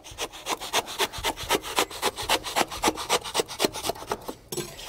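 Long kitchen knife sawing back and forth through cured expanding foam. Rapid, even rasping strokes, stopping just before the end.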